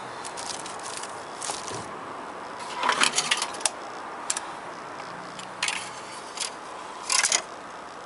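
Short clicks, scrapes and rattles of small hard parts being handled, in several clusters, the busiest about three seconds in and again about seven seconds in.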